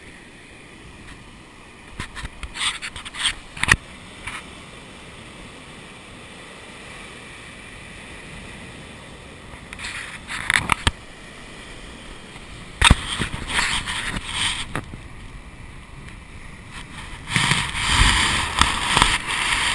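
Steady rushing noise of breaking surf and wind, heard through a GoPro Hero 2, with several short spells of louder rustling and sharp knocks.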